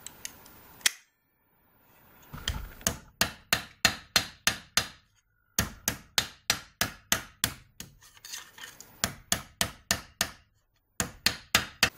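Hammer tapping repeatedly on folded thin sheet steel, about 25 gauge, held against a bench vise to set a fold. The sharp metallic blows come about three a second in four runs broken by short, sudden silences.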